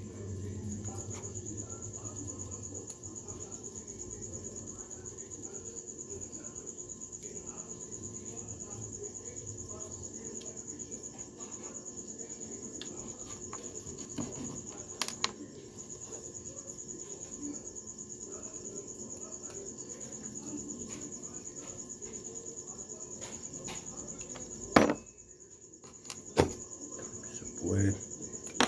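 Crickets trilling steadily over a low background hum. A few clicks and knocks of small metal reel parts and a screwdriver are handled on a wooden workbench, the loudest near the end.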